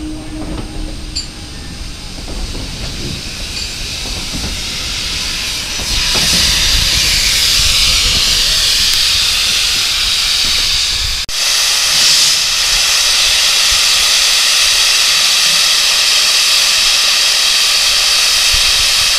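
A steam train's coaches rumbling along the track, then from about six seconds in a loud, steady hiss of a small saddle-tank steam locomotive blowing off steam, with a brief break about eleven seconds in.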